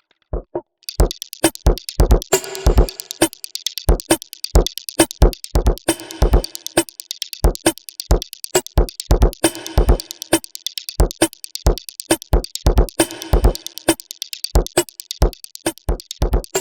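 Electronic beat loop with drum-machine-style kicks and fast hi-hats, its sounds sampled from a single piece of audio. It is almost empty for the first second, then the full beat comes in.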